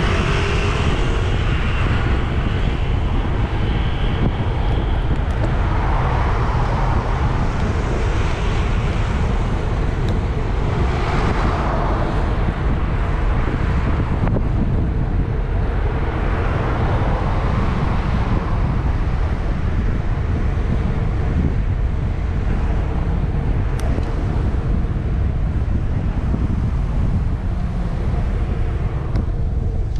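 Wind buffeting the microphone of a bike-mounted action camera on a moving bicycle, a steady low rumble. Road traffic passes alongside, with a few vehicles swelling up and fading away.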